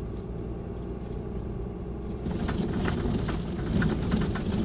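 A truck running, heard from inside the cab, a steady low hum at first; a little over two seconds in it gets louder and is joined by rapid rattles and knocks as the solid-axle truck bumps over a rough field track.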